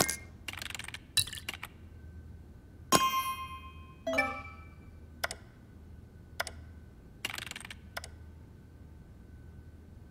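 Sparse cartoon sound effects: scattered clicks and short rustles, a ringing chime about three seconds in, followed by a falling glide, over a faint steady hum.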